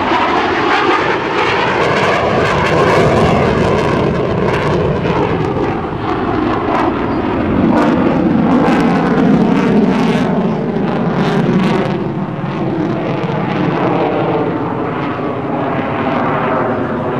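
F-15C Eagle's twin Pratt & Whitney F100 afterburning turbofans running loud in a high-power demonstration pass and climb. The roar has a sweeping, shifting tone as the jet moves across the sky, and a crackling edge.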